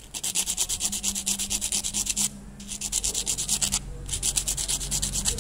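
Sandpaper rubbed quickly back and forth over a small metal electrical contact from an electric kettle, about ten rasping strokes a second, in three runs with brief pauses about two and four seconds in. The contact is blackened, and the sanding cleans it to cure a poor connection.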